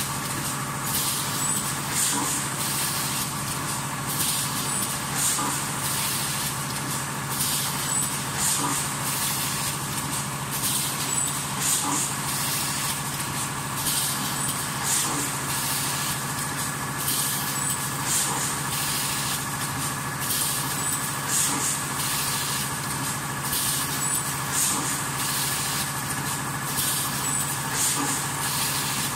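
Leno bag cutting and sewing machine running steadily with a constant mechanical hum. Short high hisses repeat roughly every one and a half seconds as it cycles.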